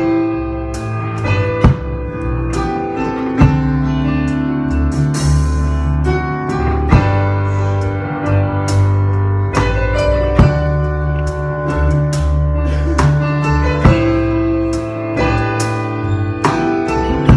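A live band playing a slow worship song: held keyboard chords over a deep bass line, with a drum-kit hit marking the beat about every 1.7 seconds.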